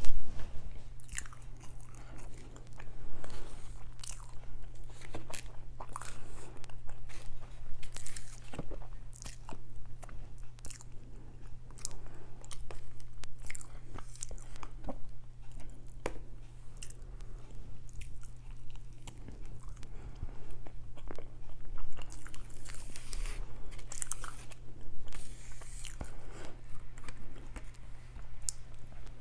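Close-miked eating sounds: irregular bites, crunches and wet chewing clicks. A steady low hum runs underneath.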